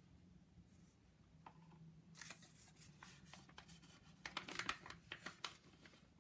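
Faint rustling and light clicks of paper packaging being handled and opened, starting about two seconds in.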